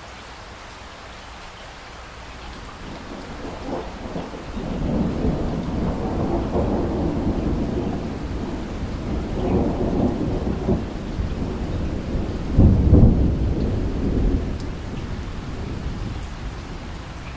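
Steady rain with a long rolling peal of thunder that builds a few seconds in, swells twice, cracks loudest about two-thirds of the way through, then rumbles away.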